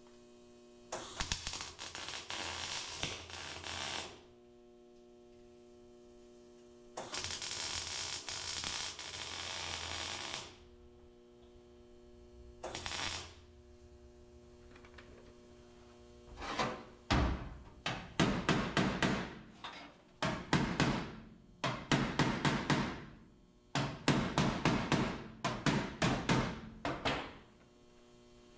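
Plug welding on a sheet-metal floor-pan patch: two welder bursts of steady crackle about three seconds each and a short third one. Then, from about halfway through, a hammer beats the steel patch into fit in quick runs of sharp blows. A steady electrical hum runs underneath.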